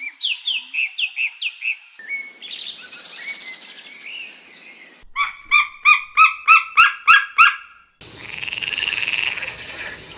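A run of different animal calls, cut one after another: first a quick series of about eight falling chirps, then a buzzy call, then about eight evenly repeated pitched calls at roughly three a second, then another buzzy call.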